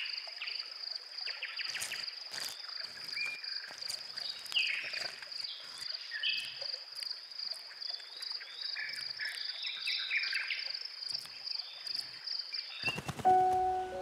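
Woodland ambience: an insect's steady high trill, with short chirps and small dry clicks and rustles over it. Music comes in about a second before the end.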